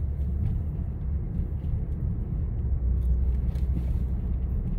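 Steady low rumble with no change through the pause.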